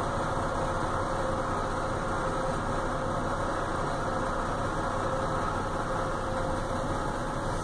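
Car engine idling steadily, a continuous hum with one steady tone running through it.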